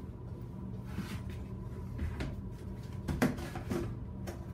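A plaster container being opened and handled: a series of short knocks and clicks, the loudest about three seconds in, over the steady hum of a running ventilation fan.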